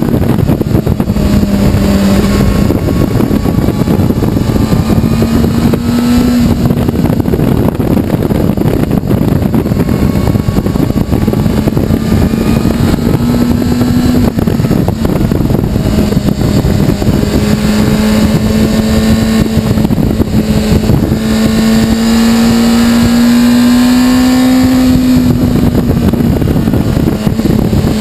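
Honda CBR600RR inline-four engine running at speed in a high gear, its note rising and dipping several times as the throttle is opened and eased through the bends, with a heavy wind rush over the microphone.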